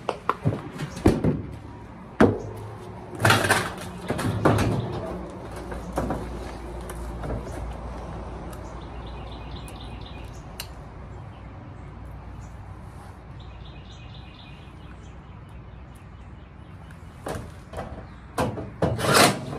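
Cordless drill driving screws into a dryer's sheet-metal top panel in short bursts, with clicks and knocks of handling, in the first few seconds and again near the end. A bird chirps in the background twice in the quieter middle.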